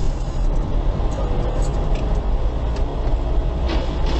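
A moving car's engine and tyre rumble heard from inside the cabin by a dash camera: a steady low drone, with a few faint ticks near the end.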